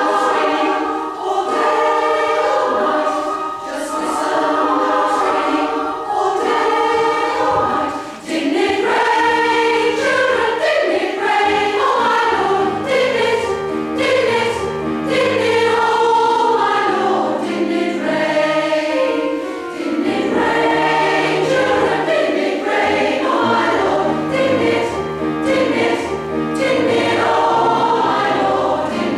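Women's choir of several dozen voices singing a gospel spiritual in parts, in a large stone church.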